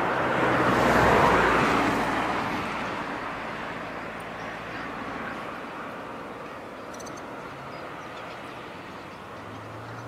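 A vehicle passing, its noise swelling to a peak about a second in and then fading into a steady low background traffic hum.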